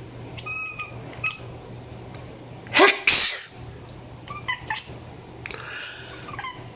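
A person sneezes loudly about three seconds in, a rising intake followed by a noisy burst. The pet cat answers with a few short, faint high chirping calls before and after the sneeze.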